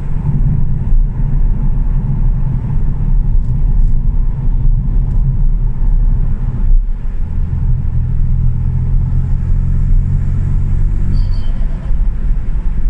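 Ford Fiesta 1.0 EcoBoost three-cylinder turbo engine running with a low rumble. About halfway through, the engine note becomes stronger and steadier for a few seconds, then drops away, with a brief high chirp near the end.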